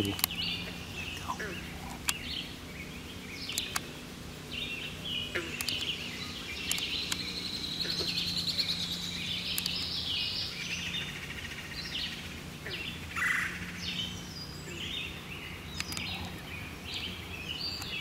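Several songbirds singing: many short, overlapping chirps and song phrases, over a steady low hum and a few sharp clicks.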